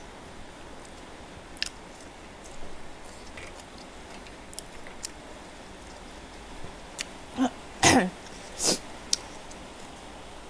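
Eating sounds of a person with a mouthful of very spicy noodles: faint wet chewing clicks, then a few short, louder breath and throat noises about three-quarters of the way through.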